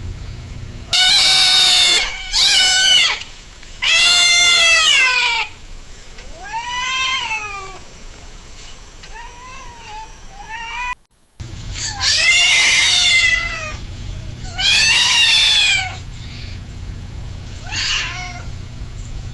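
Cat screaming: a string of drawn-out, high-pitched cries that rise and fall in pitch. Several are loud and over a second long, some are weaker and shorter, and there is a brief cut to silence near the middle.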